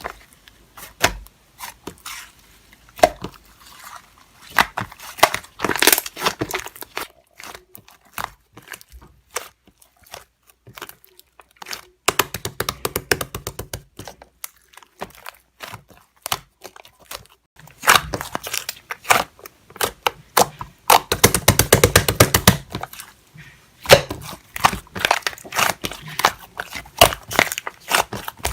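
Slime being squeezed, stretched and pressed by hand, giving irregular sticky clicks and pops. There are quick runs of crackling pops near the middle and about three quarters of the way in.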